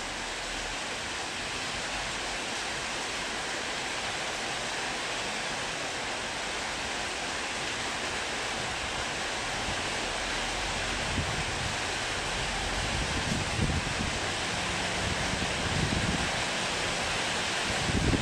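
Heavy rain pouring down as a steady hiss. From about eleven seconds in, gusts of wind buffet the microphone with low bumps that grow near the end.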